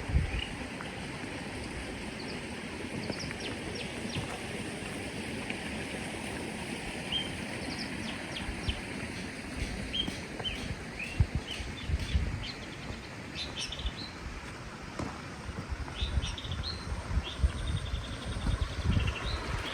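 Small birds chirping in short, scattered calls over a steady rush of running water. Low thuds come and go, more often in the second half.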